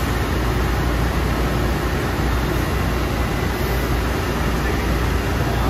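Steady mechanical hum with an even hiss over it, unchanging throughout: a powered-up CNC tool grinder and shop machinery running.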